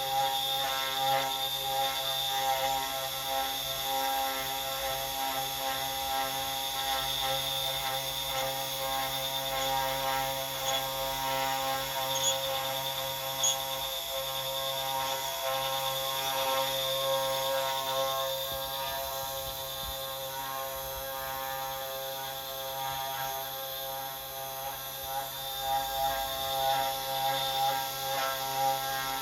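CNC 3018 desktop router running, with a steady whine and a mechanical ratcheting rattle and squeak. The squeak goes with the machine's x-axis shifting out of position.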